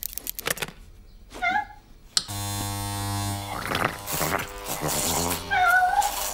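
Cartoon sound effect of an electric hair clipper switched on about two seconds in, then buzzing steadily as it shears a cat's fur. A short, bending cat-like yowl sounds over the buzz near the end, after a few sharp snips at the start.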